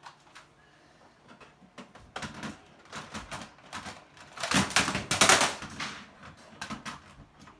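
Plastic toy gun clicking and rattling as it is handled and worked, a few scattered clicks and then a dense run of rapid clicks, loudest about halfway through.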